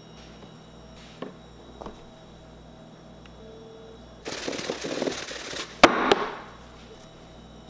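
A plastic jar of dry spice rub being shaken, a loose swishing rattle of powder and salt for about a second and a half, ending in one sharp knock. Earlier, a couple of light clicks from a metal measuring spoon on the jar.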